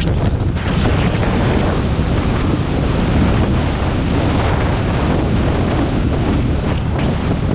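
Wind buffeting the microphone of a motorcycle riding at road speed: a loud, steady rush that covers the bike's running noise.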